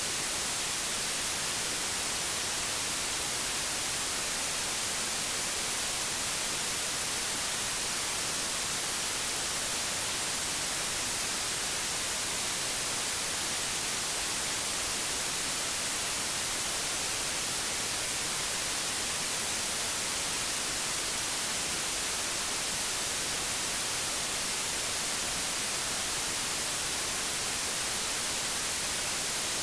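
Analogue television static: a steady hiss, even and unbroken, brighter in the treble than in the bass.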